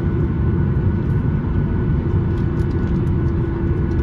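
Cabin noise of a Boeing 737-800 taxiing, heard from a window seat over the wing: its CFM56 engines at low thrust give a steady low rumble with a steady hum over it.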